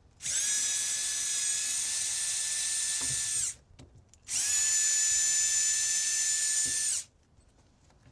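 Electric drill-driver running at a steady high whine in two runs of about three seconds each, with a short pause between, backing out the screws that hold a microwave fan motor in its plastic housing.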